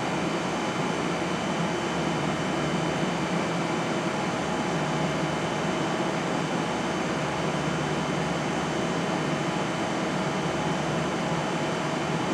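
Steady ventilation noise: an even rushing hiss with a low hum under it and a faint high steady tone, unchanging throughout.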